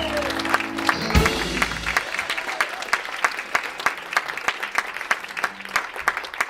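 Audience applauding at the end of a live band's song. The band's last chord rings out and stops about two seconds in, and the clapping thins out toward the end.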